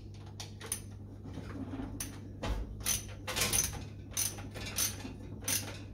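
Socket ratchet clicking in short bursts, about ten strokes, as a fuel pump mounting bolt is tightened, over a steady low hum.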